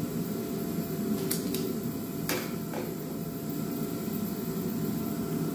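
A few sharp knocks as a heavy shock absorber is handled and set down on a wooden workbench, over a steady low hum.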